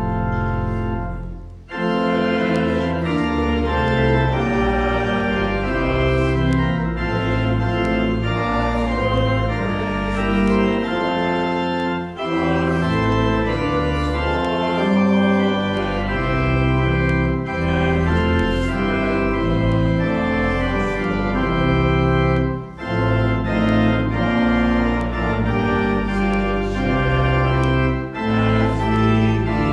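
Church organ playing slow sustained chords over a deep bass line, with brief breaks between phrases.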